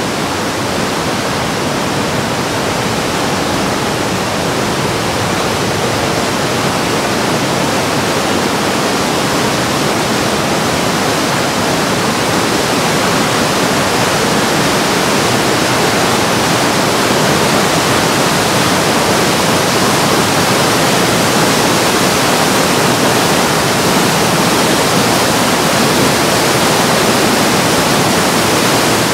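Whitewater of the Breitach river rushing through its rock gorge: a loud, steady rush that swells slightly as it goes on.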